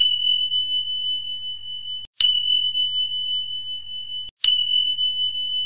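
A clock chime struck three times, about two seconds apart. Each strike rings as one clear, high, steady tone that is cut off abruptly just before the next, over a faint low hum.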